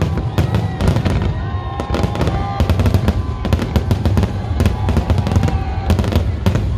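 Festival fireworks salute: a rapid, continuous barrage of sharp bangs and crackles over a deep rumble.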